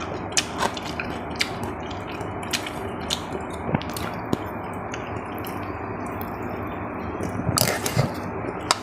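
Eating sounds: scattered light clicks and taps of utensils against bowls and dishes, with a few louder ones near the end, over a steady background hiss.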